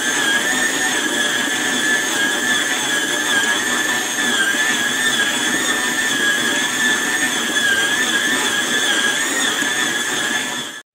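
Electric stand mixer running steadily, its motor whining at a constant speed as the hook kneads a stiff dough in a stainless steel bowl. The motor sound stops abruptly near the end.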